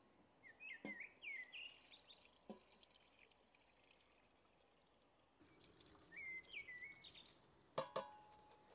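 Faint birds chirping, with a soft trickle of plant dye bath being poured from an enamel bowl through a cloth into a pot in the second half. A few plucked music notes start near the end.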